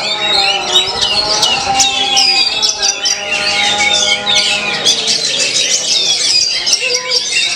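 Caged oriental magpie-robins (kacer) singing over one another in a songbird contest: a dense, unbroken run of fast chirps, trills and whistled phrases, with steady lower tones running beneath.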